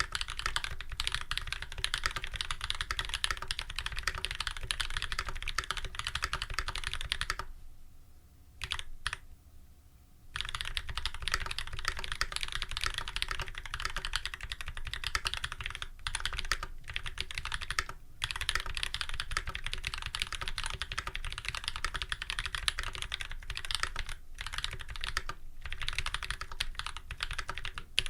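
Fast, continuous typing on a custom full-size mechanical keyboard with lubed Holy Panda tactile switches, a brass plate and GMK keycaps. The typing stops for about three seconds roughly eight seconds in, with a couple of lone keystrokes, then carries on.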